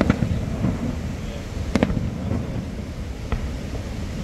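Fireworks shells bursting: a sharp bang right at the start, a louder one a little under two seconds in and another just after three seconds, with a few fainter pops. A steady low rumble runs beneath them.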